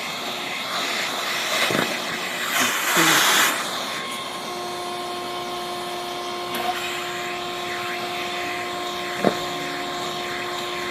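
Vacuum cleaner with a rake attachment running and sucking over grass to pick up dog droppings, with a louder rush about three seconds in. From about four seconds in, a steady hum tone sits over the airflow, and there is one sharp click near the end.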